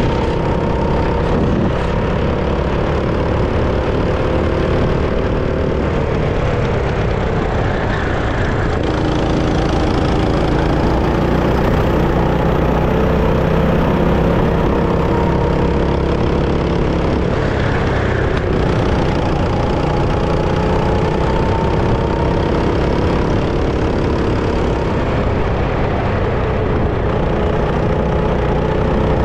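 Go-kart engine running continuously, its pitch rising and falling over a few seconds at a time as the throttle is opened and eased off.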